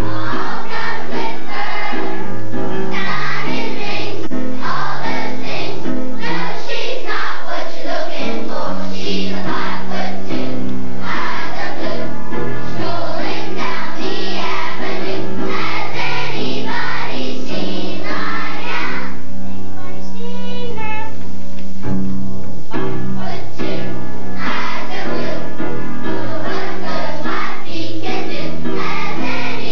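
Children's choir singing together with instrumental accompaniment that carries steady low notes under the voices. The voices drop out briefly about twenty seconds in while the accompaniment plays on.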